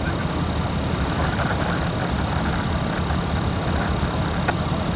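Steady motor-vehicle engine and road noise, a constant low rumble with no siren, and one brief tick near the end.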